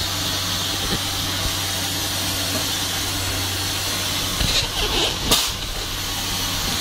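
A machine running steadily: a constant low hum under an even hiss, with a couple of short knocks about five seconds in.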